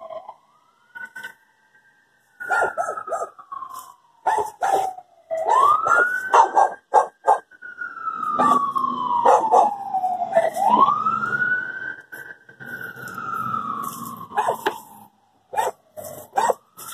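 A siren wailing, its pitch rising quickly and then sliding slowly down, three times, about every five seconds. Over it a dog barks repeatedly.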